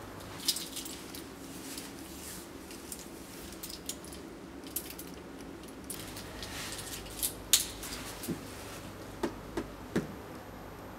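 Metal-link wristwatch bracelet clicking as it is handled and worked at its clasp. The clicks are small, sharp and scattered, one near the start and a cluster of several in the last four seconds, over a faint low hum.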